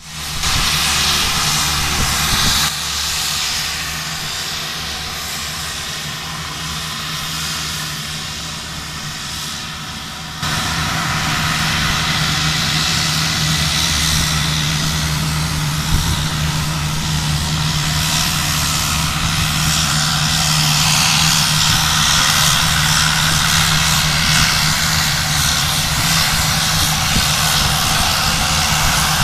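Twin-turboprop airplane's engines running as it taxis on a dirt airstrip: a steady low propeller hum under a hissing turbine sound, growing louder about ten seconds in.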